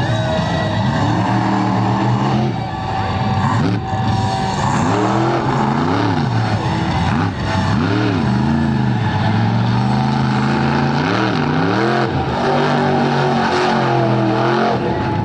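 Monster truck engine revving hard, its pitch climbing and falling again every second or two as the throttle is worked, with a few brief sharp cracks in between.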